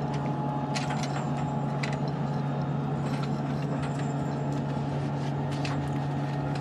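Steady hum of the space station's cabin ventilation fans and equipment: a low, even drone with a faint higher whine over it. A few light clicks and taps come through it, about a second in and again around three and six seconds.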